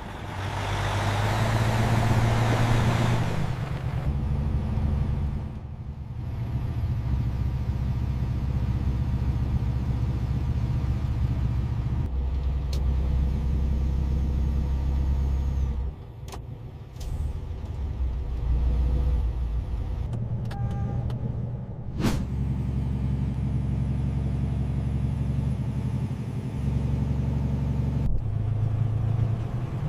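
Semi-truck engine and road noise: a steady low drone that shifts abruptly several times, with a rush of hiss over the first few seconds and a sharp click about two-thirds of the way through.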